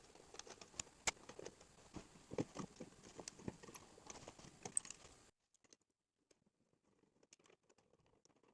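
Faint, scattered clicks and light knocks of small parts being handled and fitted as a snowblower's recoil starter is reassembled. The background hiss cuts out abruptly about five seconds in, leaving only a few very faint clicks.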